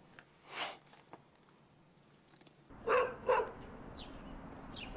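A dog barking twice in quick succession over outdoor background noise, followed by a few short high, falling bird chirps.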